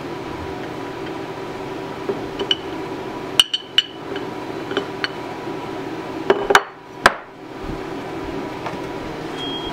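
Aluminum soft-plastic bait injection mold being pried open and its halves separated: scattered sharp metallic clicks and clinks, with the two loudest about a third of the way in and again about two-thirds in, over a steady background hum.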